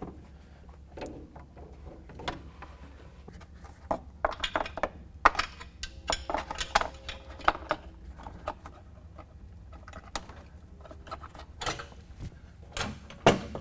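Irregular clinks and light knocks as metal hose clamps and a silicone turbo charge tube are handled and pushed onto their pipe, over a low steady hum.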